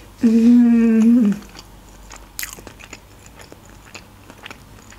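A woman hums a long, steady closed-mouth "mmm" of enjoyment for about a second, then chews a mouthful of sauce-coated chicken with soft, wet chewing and small mouth clicks.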